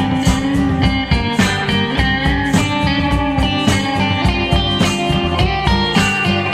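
Instrumental break of a blues-rock song: guitar playing over bass and drums with a steady beat, no vocals.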